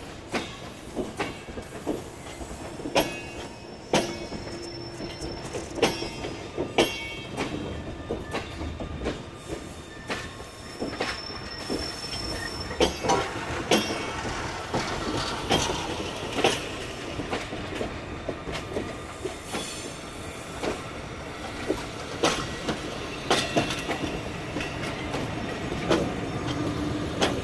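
Passenger coaches rolling slowly along the track, their wheels giving irregular sharp clicks and knocks over rail joints and points, with brief thin wheel squeals.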